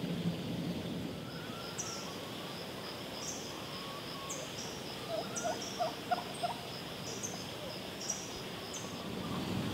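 Birds calling outdoors: a brief run of quick, low notes about halfway through, with short, high, falling chirps repeated throughout.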